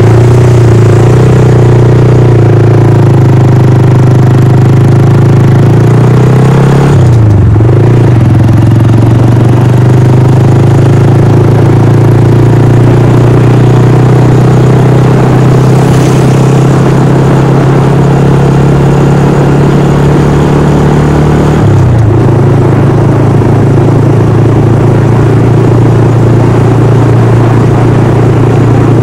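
Honda Monkey 125's single-cylinder engine running under way on the road, its note slowly climbing with speed. The revs drop briefly about seven seconds in and step down again about twenty-two seconds in.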